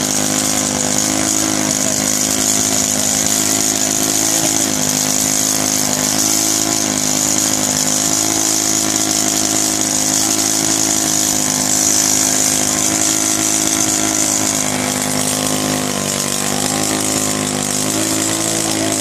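Go-kart engine held at high revs through a long burnout, with a steady high hiss from the spinning tyre scrubbing on concrete. The engine note stays level and wavers briefly a few times near the end.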